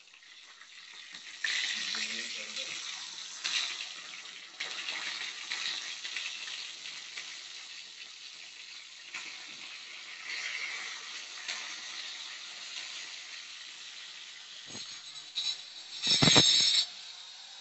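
Fish frying in oil in an aluminium wok: a steady sizzle with occasional scrapes and taps of a metal ladle. Near the end comes a short, loud burst from an angle grinder cutting into concrete block.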